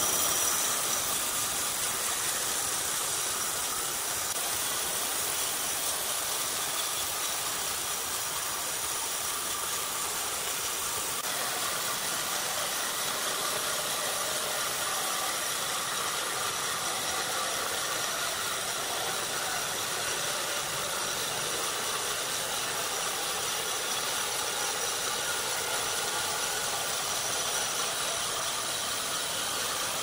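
Large horizontal band sawmill running and cutting lengthwise through a squared timber: a steady, even saw-and-motor noise with no breaks or pauses.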